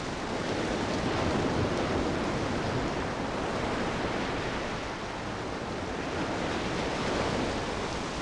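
Steady rush of sea surf and wind, swelling gently twice and easing.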